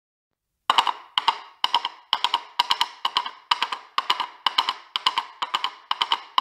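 Clip-clop of horse hooves as a sound effect: a steady rhythm of sharp paired wooden knocks, about two pairs a second, starting just under a second in.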